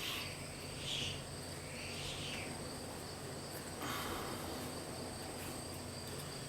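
Soft rubbing and brushing sounds, four of them, as an adhesive rubberized grip wrap is pressed and smoothed onto a pistol's polymer grip to work out air bubbles, over a steady faint high-pitched whine.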